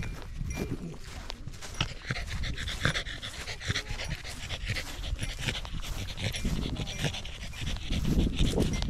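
A corgi panting quickly as it trots, with footsteps on grass.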